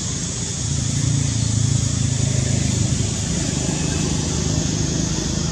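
A steady low engine-like hum that grows louder about a second in, over an even background hiss.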